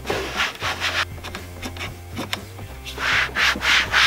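A damp sponge rubbed back and forth over a plastic car dashboard in quick swishing strokes, about four or five a second, with a pause of about two seconds in the middle. The sponge is wiping off car-shampoo residue.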